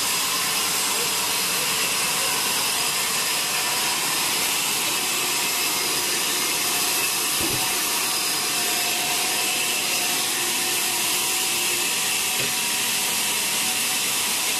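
Sawmill log band saw running with a steady high hiss and whine, sawing a wet teak log.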